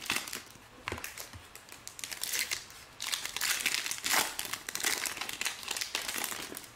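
Foil wrapper of a trading-card pack crinkling as hands peel it open. The crackling comes in bursts, softer at first and busier from about three seconds in.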